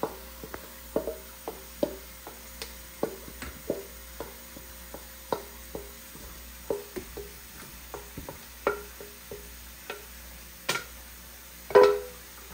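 A utensil stirring a mixture in a metal pot, knocking against the side about one to two times a second with short ringing clinks. A louder clank comes near the end.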